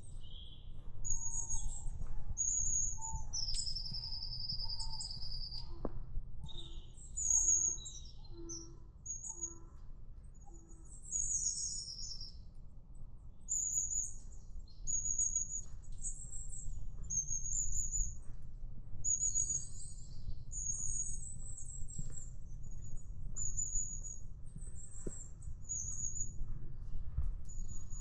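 Woodland birds calling: many short, very high-pitched calls repeated throughout, with a longer thin whistle about four seconds in and a lower run of five short notes between about six and eleven seconds.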